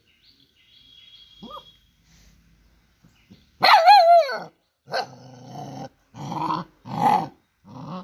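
Puppy barking: after a quiet start, one long bark whose pitch rises and falls about three and a half seconds in, then a run of four or five short barks.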